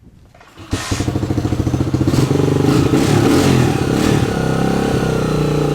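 150cc single-cylinder dirt bike engine catching and starting about a second in, revved in a few quick bursts, then settling into a steady fast idle. It is running well only on half choke.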